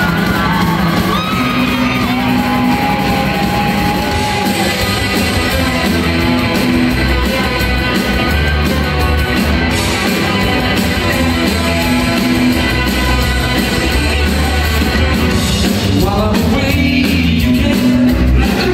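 Rock band playing live, loud, with electric guitars, bass and drums and a voice singing, heard from the audience in a large hall.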